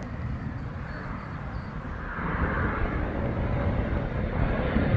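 Jet engine noise from a fighter jet in flight, a steady rushing sound that grows louder from about two seconds in as the jet comes closer.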